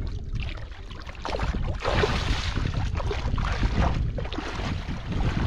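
Bare feet and hands splashing and sloshing through shallow muddy water, irregular and getting busier about a second in, with wind rumbling on the microphone.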